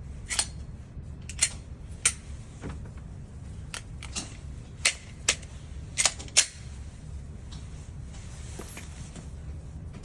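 Gunshots at a shooting range: about eight sharp shots in irregular succession over six seconds, with a few fainter ones between them and a steady low hum underneath.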